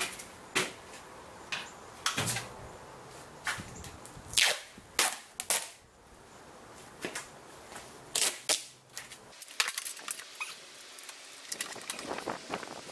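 Duct tape being pulled off the roll in a series of short, sharp rips, among knocks from handling the perforated steel tube exoskeleton arm; a quick run of small clicks near the end.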